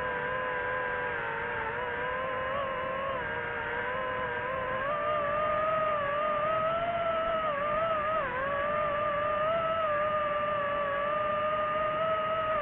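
DJI FPV drone's motors and propellers whining at a steady pitch that drifts with the throttle. The pitch steps up about five seconds in and dips briefly near eight seconds.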